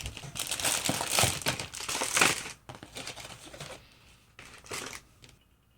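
Crinkly plastic packaging being handled, with dense crackling for the first two and a half seconds, then a few fainter rustles and taps.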